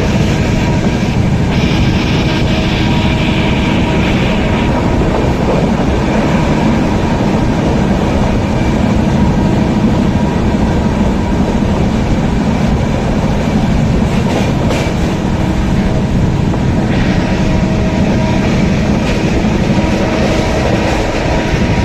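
Grand Trunk Express LHB passenger coach running at speed, heard at an open window: a steady loud rumble of wheels on rails mixed with rushing air. A brighter hiss swells for a couple of seconds near the start and again near the end.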